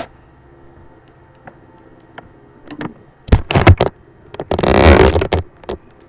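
Loud bumping and rubbing handling noise on the webcam's microphone as it is picked up and carried, in two bursts about three and a half and five seconds in, after a few seconds of quiet room sound with small ticks.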